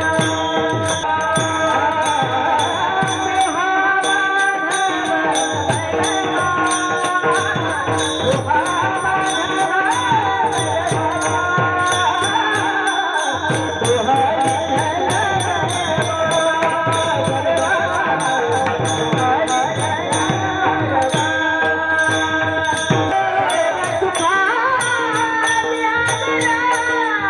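Marathi devotional kirtan bhajan: a voice sings over sustained harmonium-like tones, with jingling hand cymbals and a drum keeping a steady rhythmic beat.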